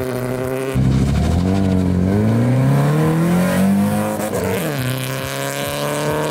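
Nissan 240SX with an SR20 four-cylinder engine launching hard from a standing start: held at steady revs, it gets suddenly louder under a second in and the revs climb steadily. The pitch dips sharply about four and a half seconds in, then climbs again.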